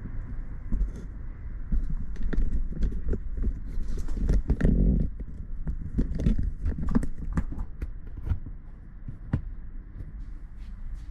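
Irregular knocks, taps and clicks over a low rumble: hand work on a car body's sheet metal while sound-deadening mat is fitted. A denser, louder run of knocking comes about four to five seconds in.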